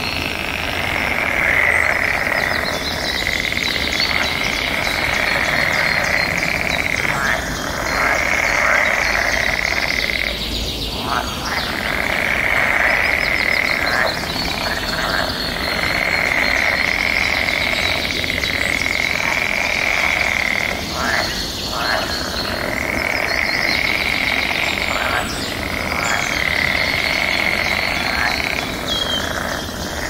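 Birds chirping over a steady, high trilling chorus that runs for a few seconds at a time with short breaks.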